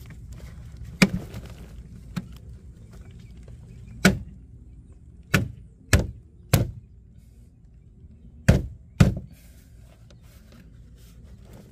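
Plastic license plate light housing being pressed and knocked into a tight-fitting opening in a carbon fiber trunk lid: a series of sharp clicks and knocks, a second or more apart, as it is forced into a hole too small for it.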